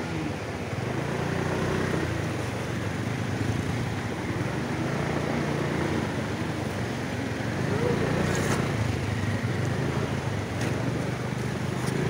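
Motorcycle engines running over the steady rush of a fast-flowing river, with scattered voices from a crowd.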